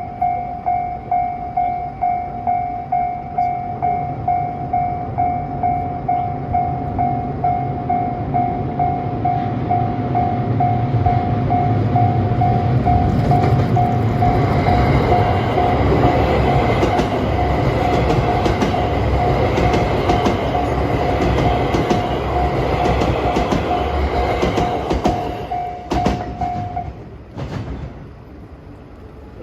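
Japanese level-crossing alarm ringing its electronic bell about twice a second as a train passes over the crossing, its wheels rumbling and clicking over the rail joints. The bell stops near the end as the crossing clears.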